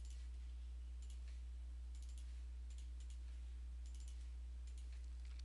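Computer mouse clicking as files are picked in a dialog: short sharp clicks every second or so, several in quick pairs. A steady low electrical hum runs under them.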